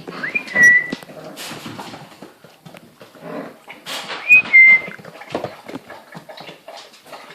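Puppies whining: two high squeals about four seconds apart, each rising briefly and then held, among short rustling and scuffling sounds.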